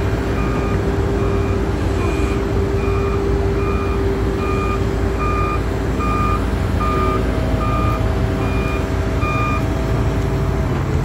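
Mobile crane's diesel engine running steadily during a lift, with an electronic warning beeper sounding about one and a half times a second; the beeping stops near the end.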